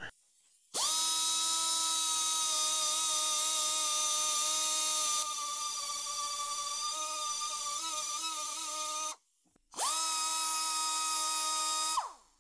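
Handheld high-speed rotary tool with a small abrasive point, running at a steady high whine and grinding on a metal step pulley; the pitch sags slightly and wavers as it bears on the work. It stops about nine seconds in, then runs again for about two seconds and winds down near the end.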